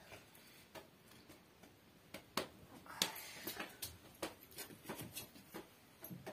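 Dry twigs and sticks being snapped and handled as they are laid into a clay cookstove (chulha): a string of faint, irregular clicks and cracks, with a brief rustle about three seconds in.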